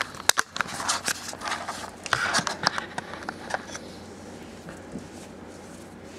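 Close handling noise of a hand stroking a cat's fur beside the camera: rustling and scraping with a few sharp clicks, dying down to a faint steady background about four seconds in.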